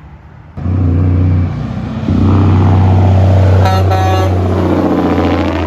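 A heavy semi truck's diesel engine running loud and steady as it goes by, with a brief horn blast about two-thirds of the way through.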